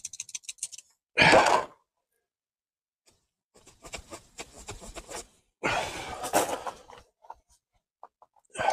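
Oil level being checked on the Voge DSX 900's dipstick: a quick run of light clicks that dies away about a second in, then handling noises, with faint scratching and short bursts of rushing noise like breaths close to the microphone.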